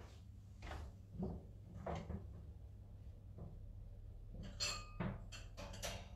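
Kitchen clatter: scattered knocks and clicks of dishes and utensils being handled, with one ringing clink, like glass or metal struck, about four and a half seconds in and a few quick clicks after it, over a low steady hum.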